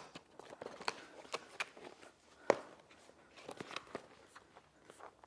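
Keyboard packaging being handled: scattered light clicks and rustles, with one sharp knock about two and a half seconds in.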